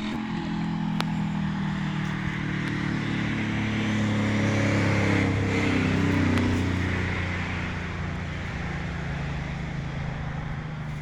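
Small engine of a friction-drive motorized bicycle running steadily. It gets a little louder about five seconds in, then eases off.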